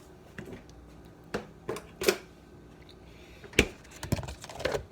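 Irregular clicks and knocks of kitchen items being handled, about eight sharp taps, the loudest about three and a half seconds in, with a quick cluster near the end.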